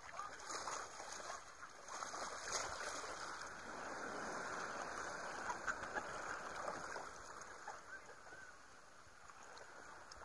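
Seawater sloshing and splashing at the beach, a rushing wash with small crackles that swells about half a second in and eases off after about seven seconds.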